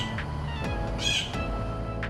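A blue jay gives one short, harsh call about a second in, over steady background music.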